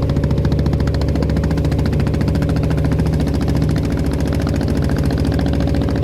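Klotok boat's engine running steadily at cruising speed, a loud, rapid, even chugging of engine beats.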